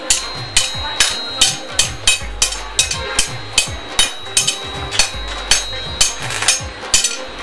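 Hand hammer striking a steel rod on a metal block in a steady rhythm, about two to three sharp blows a second.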